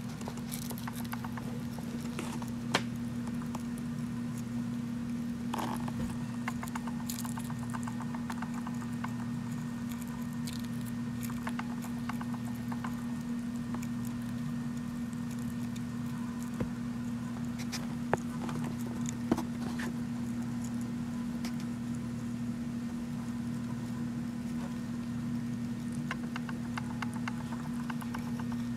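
Dwarf hamster eating seeds and grains from a plastic dish: many tiny crunching clicks as it cracks and chews, over a steady low hum.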